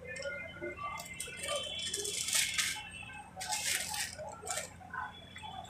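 Paper rustling and crinkling as a cooked egg paratha is wrapped in a paper sheet, with two louder rustles near the middle, over a low steady hum.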